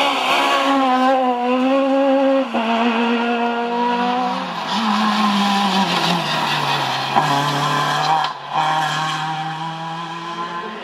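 Rally car engines running at high revs as cars drive the stage. The engine note jumps abruptly in pitch several times, over tyre noise on the road surface.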